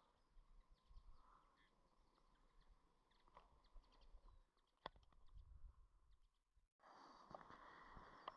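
Near silence: faint rural outdoor ambience with scattered faint ticks and one sharper click about five seconds in. Just before the end it cuts to a slightly louder outdoor ambience with a few light clicks.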